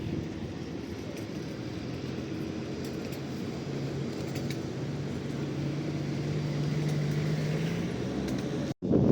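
Diesel train engine running steadily, its low hum rising slightly in pitch through the middle, before the sound cuts off abruptly near the end.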